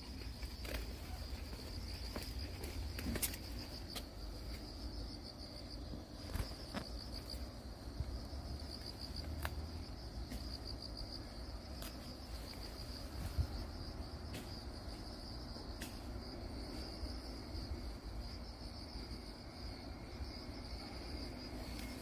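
Insects chirring steadily in a high, fast-pulsing trill, over a low rumble with a few scattered faint clicks.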